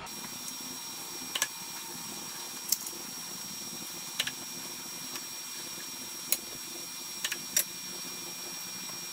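Scattered sharp clicks, about seven at uneven intervals, over a steady faint hiss with a thin high whine: hand work on a Bridgeport milling machine while its head is trammed with a dial indicator.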